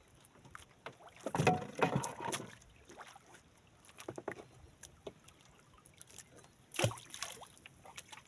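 Handling noise on a small wooden outrigger fishing boat at sea: water lapping at the hull and scattered clicks and knocks as a handline and bait are worked over the side. There is a sharp knock about seven seconds in.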